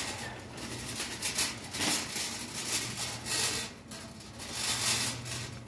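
Wire shopping cart rolling over a tiled floor, with rattling and rubbing noise that swells and fades every second or so, over a faint steady low hum.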